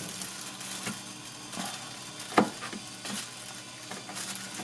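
Chef's knife chopping kimchi on a plastic cutting board: a handful of irregular knocks of the blade against the board, the sharpest about two and a half seconds in.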